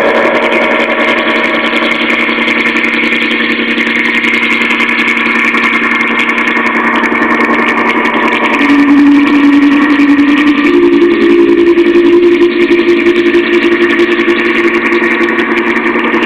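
A loud, steady drone made of many held tones. About halfway through, a strong low tone comes in, then steps up in pitch a couple of seconds later.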